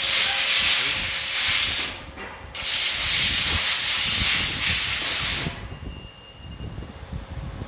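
A pressurised jet hissing loudly in two long blasts, the first about two seconds and the second about three, with a short break between them; it stops about two thirds of the way through.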